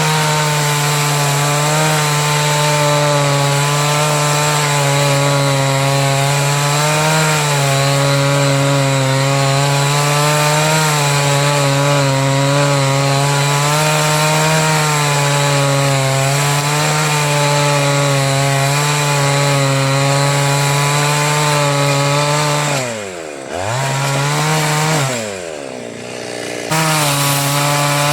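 Two-stroke chainsaw running at high revs while cutting wood, its pitch wavering slightly under load. Near the end the revs twice drop sharply and pick back up before it runs on at full speed.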